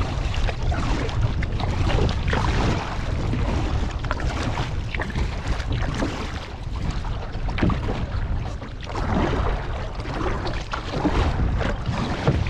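Kayak paddle strokes splashing and dripping in harbour water, with wind rumbling on the microphone.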